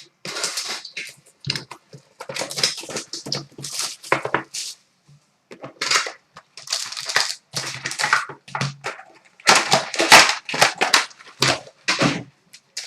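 Trading-card packaging being torn open and handled: plastic and foil wrappers crinkling and ripping in irregular bursts as a box of hockey cards is opened.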